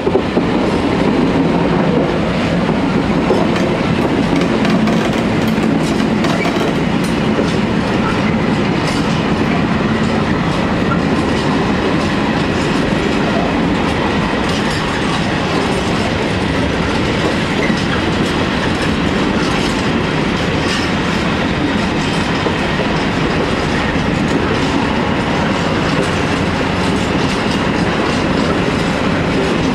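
An ET41 electric locomotive runs past, followed by a long string of empty open coal wagons. Their wheels keep up a steady clickety-clack over the rail joints, with a continuous rolling rumble.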